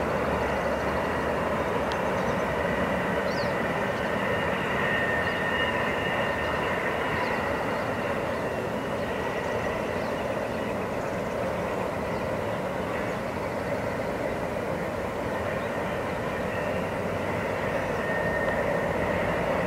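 Distant freight train approaching, led by two GE diesel locomotives (a CP ES44AC and a UP AC45CCTE): a steady rumble of engines and rolling cars with a steady high whine over it.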